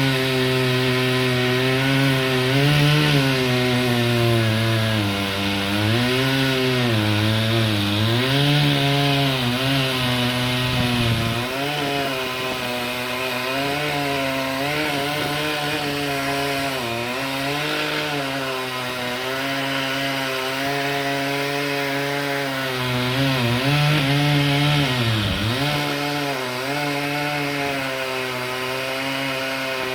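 Chainsaw running as it cuts wood, the engine's pitch sagging and recovering again and again as the chain bites, with one deep dip late on.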